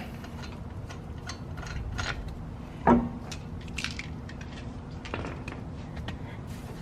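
Scattered light metallic clinks and knocks from hand work at the jacked-up car's front wheel, with one louder knock about three seconds in.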